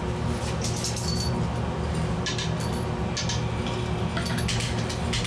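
A few light glass clinks and taps as a glass watch glass is handled and set onto the rim of a glass test tube, over steady low background music.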